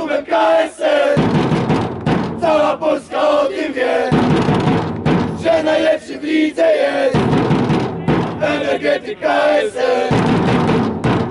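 A small group of football supporters singing a chant together in phrases of a few seconds, with short breaks between phrases.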